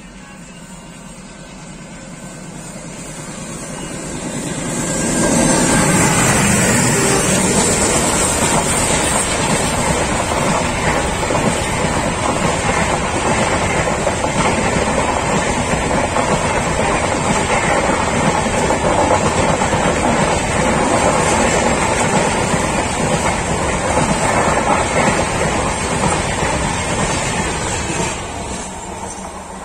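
A passenger train of red-and-grey LHB coaches passing close by on the adjacent track, heard from the doorway of another moving train. The noise builds over the first five seconds as the train nears, stays loud and steady while the coaches go by, and falls away near the end as the last coach, a luggage van, passes.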